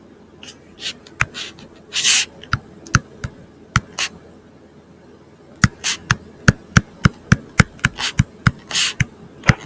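Stylus on a tablet screen during handwriting: irregular sharp taps and clicks with a few short scratchy strokes, coming quicker in the second half.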